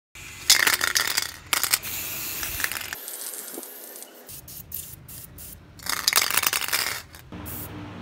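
Aerosol spray paint can being shaken in hand, its mixing ball rattling and clicking inside the metal can in two bouts of shaking. A steady low hum comes in near the end.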